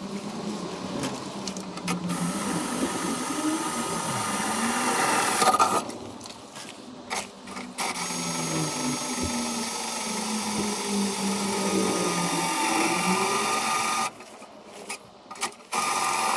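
Handheld power drill running in long stretches with a steady whine, stopping briefly about a third of the way in and again near the end.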